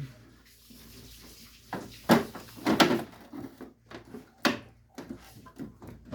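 A few knocks and clatters of plastic parts being handled, loudest about two to three seconds in, as the plastic cover of a split AC indoor unit is fitted back on.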